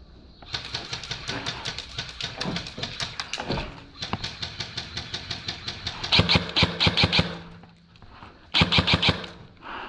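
Airsoft electric guns (AEGs) firing in rapid bursts: a run of fainter shots over the first few seconds, then two loud close bursts, one of about a second some six seconds in and a shorter one near the end.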